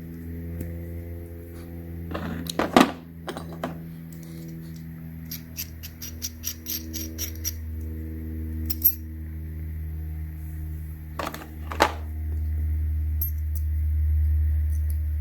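Metal tools clicking and clinking as a tap and die set is handled: sharp clinks a few seconds in, a quick run of light ticks at about four a second around six seconds in, and two more clinks near the end. Under it runs background music with a steady bass.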